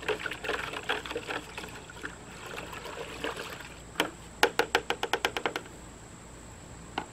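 Muscadine juice, sugar and yeast sloshing and splashing as they are stirred together in a plastic five-gallon bucket. About four seconds in comes a quick series of about ten sharp taps, the stirring spoon knocked against the bucket.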